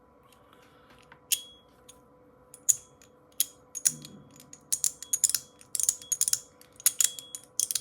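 Small fidget toy's spring-and-ball detent button being pressed and popped over and over: sharp clicks, a few at first, then coming quickly in clusters from about halfway through.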